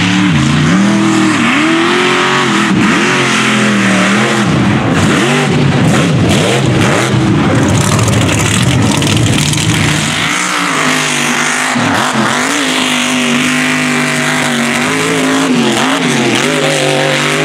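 Big mud-truck race engines revving hard, the pitch rising and falling over and over as the throttle is worked through the jumps.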